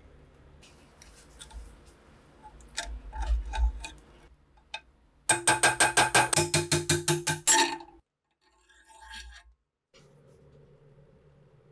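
A hammer taps a steel pin punch against a rusted SVT-40 rifle part in a quick, even run of sharp metallic strokes, about seven a second for a couple of seconds, each one ringing. Faint scraping and clicking of metal on rusty metal come before it.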